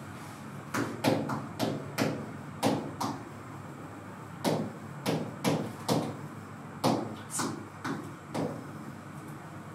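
Pen tip tapping and scraping on an interactive touchscreen during handwriting: a run of about twenty short ticks, irregularly spaced, stopping about eight and a half seconds in.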